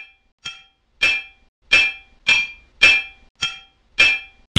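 Hammer striking an anvil: a series of about eight sharp metallic clangs, roughly two a second, each ringing briefly at a high pitch.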